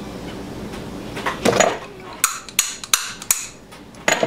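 Hand tools knocking and tapping on a small metal piece during metalworking: an irregular run of about eight sharp knocks, starting about a second and a half in.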